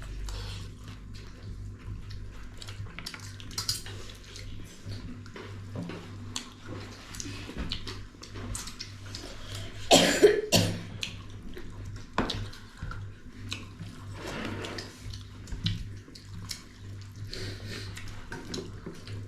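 People eating a meal of rice and pork broth, with scattered small clicks and slurps from hands, spoons and plates. About ten seconds in comes one loud cough, the loudest sound here.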